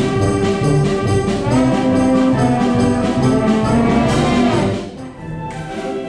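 Live concert band playing, brass to the fore, with a regular beat in the low brass. Just before the end the music drops suddenly to a softer level.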